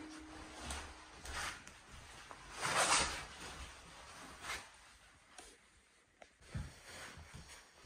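Quiet room with a guitar chord dying away at the start, then soft rustling and handling noises, the loudest a short hissy whoosh about three seconds in, and a few faint low knocks near the end.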